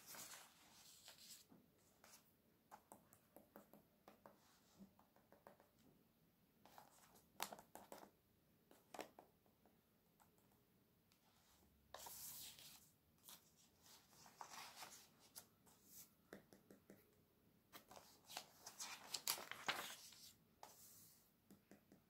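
Glossy magazine-catalogue pages being turned and smoothed flat by hand: soft paper rustles and swishes every few seconds, with small ticks of fingers on the paper in between. The loudest rustles come at the start and a couple of seconds before the end.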